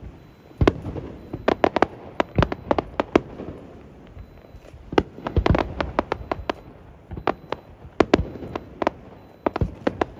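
Fireworks display: many sharp bangs going off in quick, uneven clusters, with no let-up between the clusters.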